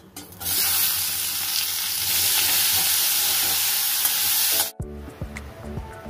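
Chopped onions and tomatoes sizzling in hot oil in an aluminium kadai as they are tipped in and stirred with a steel spatula. The sizzle cuts off suddenly near the end and gives way to background music.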